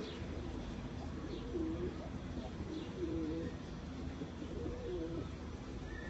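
Domestic pigeons cooing: a series of low coos, roughly one a second.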